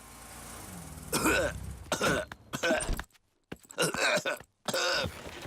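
A faint rising hiss, then a cartoon bear character, Doctor Brown Bear, coughing in a run of five or six short, hoarse coughs. He has caught Pedro's cough and is ill.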